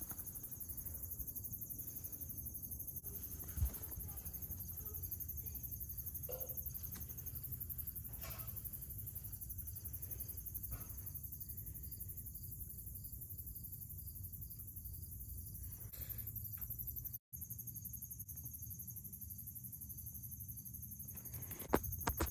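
Crickets trilling steadily in the night, over a low, steady rumble, with one brief knock a few seconds in.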